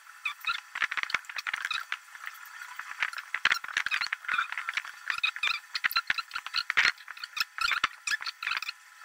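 Computer keyboard and mouse clicking as AutoCAD commands are entered: many short, irregular clicks in quick clusters with brief pauses between them.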